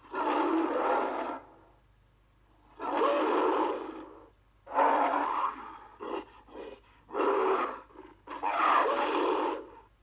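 King Kong movie roar sound effects: a run of about five gruff, breathy roars, each a second or so long, with a few short grunts between the third and fourth.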